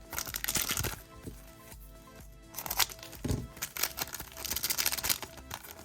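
Trading cards and a crinkly foil card-pack wrapper being handled: three bursts of crinkling and rustling, under background music.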